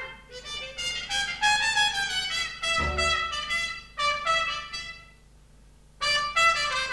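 Muted trumpet playing a jazz solo in quick, short-note phrases, breaking off for about a second near the end before coming back in.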